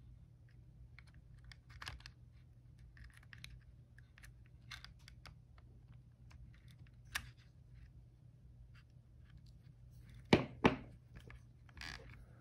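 Light clicks and scrapes of a metal tool and small plastic gearbox parts being handled in a hobby RC car's transmission, with two sharper clicks about ten seconds in.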